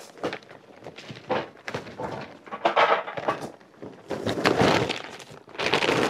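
Charcoal briquettes clattering and tumbling into a kettle grill in several bursts as they are poured in.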